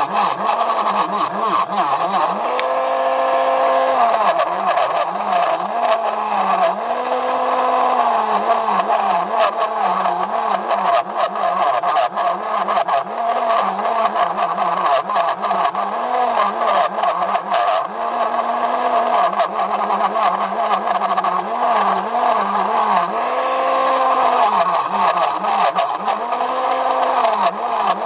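Wood lathe spinning a bowl while a hand-held turning tool cuts the inside, with a continuous cutting hiss. Under it a motor whine wavers up and down in pitch every second or two.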